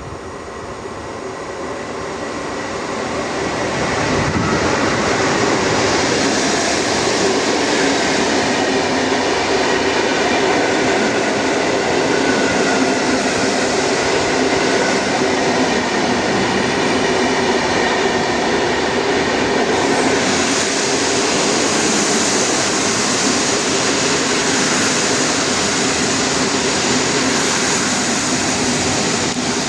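A train running through the station at close range: the noise of its wheels on the rails builds over the first few seconds, then holds steady, with a few steady tones running through it.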